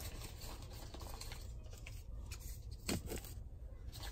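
Faint handling of paper mail packaging: soft rustling, with a couple of light clicks about three seconds in.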